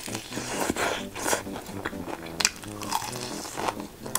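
Close-miked eating of crispy fried chicken: a run of crisp crunching bites and chewing, with sharp crunches scattered through the few seconds.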